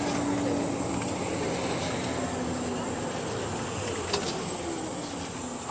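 Inside an Ikarus 256 coach: the RABA rear axle's whine, a single tone that slowly falls in pitch as the bus slows, over diesel engine and road rumble. A single sharp knock about four seconds in.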